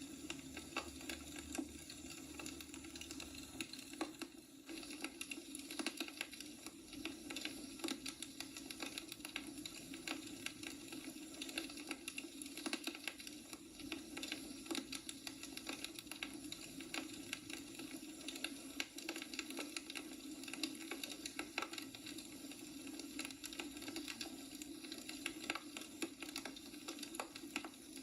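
Firewood burning in a wood fireplace, crackling with many small irregular pops and snaps over a steady low hum.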